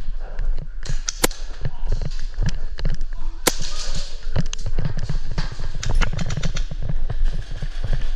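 Airsoft guns firing in scattered single shots and short rapid bursts, heard as sharp cracks and clicks, with low thumps close to the microphone throughout.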